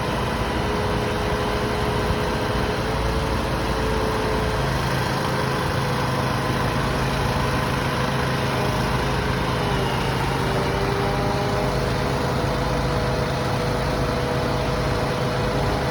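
Engines of heavy tree-work machinery running steadily at idle. A lower, deeper hum joins about four and a half seconds in, and the engine pitch dips briefly about ten seconds in.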